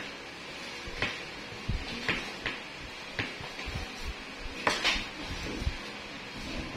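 A few scattered light clicks and knocks over a faint steady background noise, the loudest pair a little past the middle.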